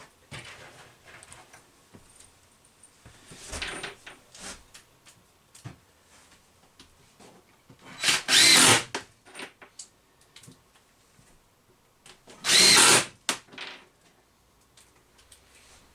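Power drill driving drywall screws into the countertop in two short runs of about a second each, with the motor whining. Small handling clicks and rustles come between the runs.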